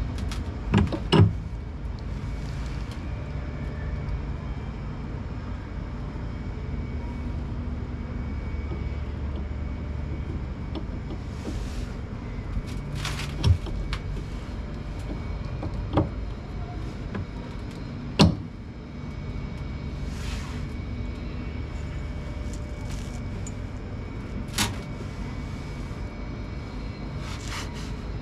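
Top-loading pulsator washing machine running with a steady low hum and rumble, broken by several sharp clicks or knocks.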